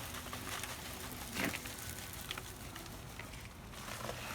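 Wet concrete being stirred and scraped off the bottom of its container: faint scrapes and wet slaps, one louder about a second and a half in. The mix is sloppy, with too much water in it.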